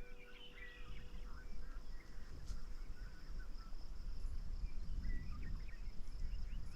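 Wild birds chirping and singing in short scattered phrases over a steady high insect trill, with a low rumble underneath that grows about a second in.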